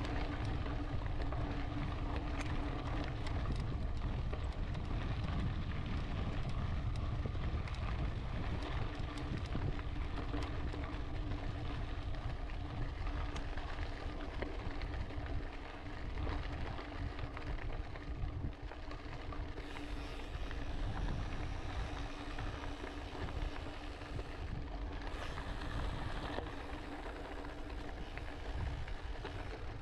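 Wind buffeting a helmet or handlebar camera's microphone while a mountain bike rolls along a gravel dirt road, its tyres crunching on loose stones, with a steady low hum underneath.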